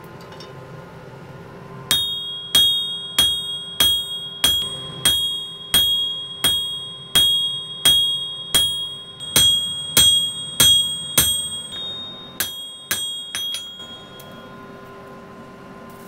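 Hand hammer striking a red-hot knife blade on an anvil: about twenty ringing blows at roughly one and a half a second, the last few quicker and lighter. A steady hum runs underneath.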